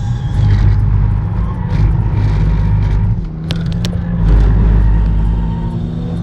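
Renault Mégane R26's 2.0-litre turbocharged four-cylinder engine running hard on track, heard from inside the car. The engine note drops briefly about three seconds in, then comes back louder, with a few sharp clicks around the drop.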